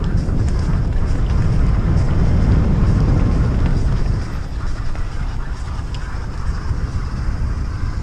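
Wind buffeting the microphone of a bike-mounted or helmet action camera, over the rumble of mountain bike tyres on a dirt trail, with scattered small clicks and rattles. The rumble eases a little about four seconds in.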